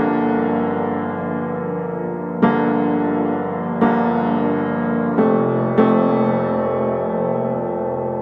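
Slow piano music: sustained chords, with a new chord struck about every one to one and a half seconds and left to ring.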